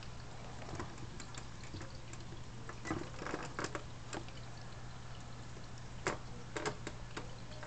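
Water in a small fish tank: light trickling and a few small splashes, with scattered soft clicks over a steady low hum.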